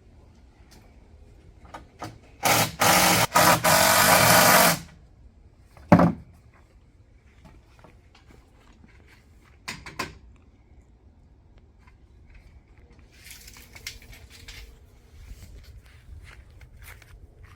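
Power drill run in a few short pulses, the trigger let off briefly between them for about two seconds, followed by two sharp knocks a few seconds apart.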